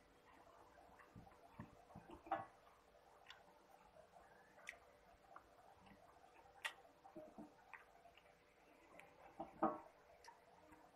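Quiet sounds of eating by hand from a metal plate: scattered small clicks and taps as fingers pick at chicken pieces, with two louder knocks, about two seconds in and near the end.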